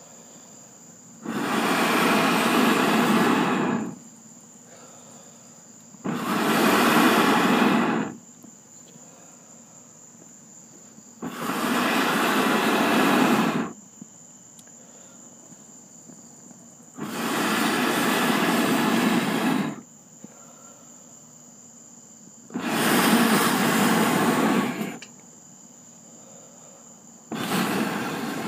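Someone blowing long, hard breaths onto glowing charcoal briquettes to get them to catch, six blows of two to three seconds each about every five seconds, each a loud rush of air.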